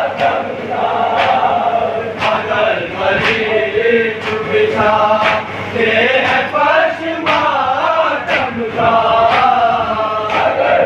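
A group of men chanting a nauha, a Shia lament, together in a steady meter. A sharp beat falls about once a second, the unison hand-on-chest strikes of matam.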